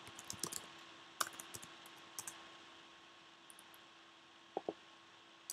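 Faint keystrokes on a computer keyboard, a scatter of quick taps over the first two seconds or so, then two quick clicks about four and a half seconds in. A faint steady hum lies under them.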